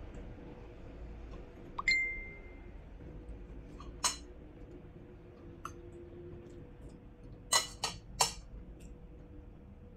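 A spoon clinking against a ceramic bowl while eating: one ringing clink about two seconds in, a few lighter taps, then three quick clinks close together near the end.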